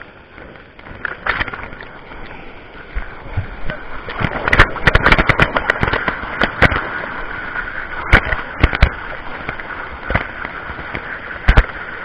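Rushing white water of a small waterfall churning right around the microphone, with many sharp splashes and knocks of water striking the camera, busiest in the middle.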